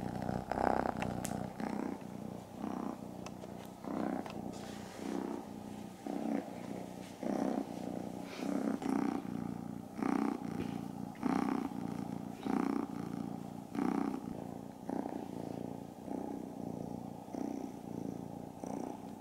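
Tabby-and-white kitten purring loudly while being petted, the purr swelling and fading with each breath, about once every second and a quarter.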